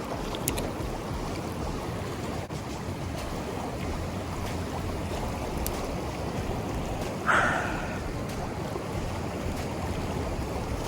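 Steady rush of a fast mountain stream flowing over rocks, with a brief louder splash-like sound about seven seconds in.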